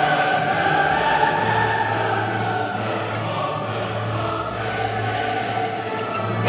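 Choir singing long, held chords over a low sustained note.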